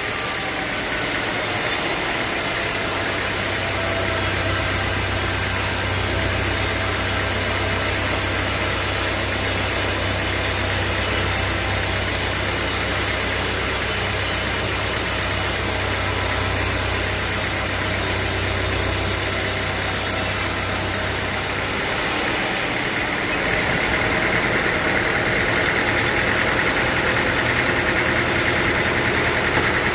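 Sawmill machinery running steadily as it works a teak log. A low engine drone underlies a constant mechanical noise and stops about 22 seconds in, while the machine noise carries on.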